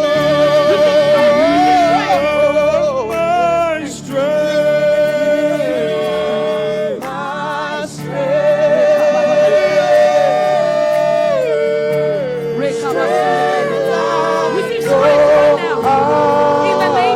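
Worship music: a voice singing long held notes with vibrato, sliding between pitches, over a steady sustained accompaniment.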